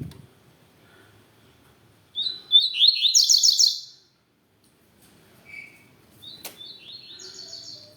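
Double-collared seedeater (coleiro) singing: a loud phrase of fast, repeated high whistled notes about two seconds in, then a quieter phrase near the end. A single sharp click comes about six and a half seconds in.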